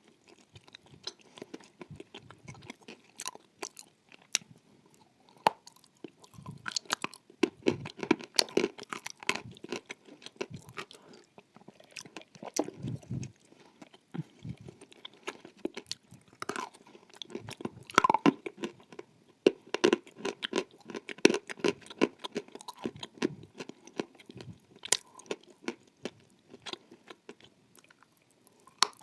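Close-miked bites and chewing of dry edible clay: sharp crunches and crackles as pieces snap off, then grinding chews, in clusters throughout.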